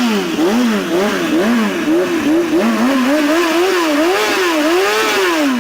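Motorcycle engine revved again and again, its pitch rising and falling in quick repeated throttle blips, about one and a half a second.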